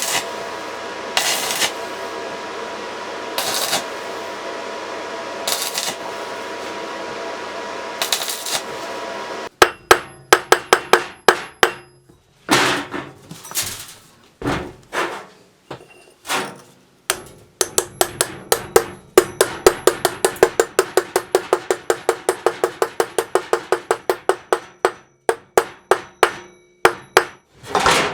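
A steady machine sound for about the first nine seconds, then a hammer striking metal: single blows at first, then fast runs of about three to four strikes a second.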